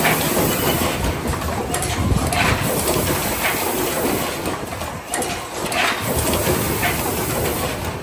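Automated power-cord assembly machine running, a steady mechanical clatter with pneumatic clacks recurring every second or so.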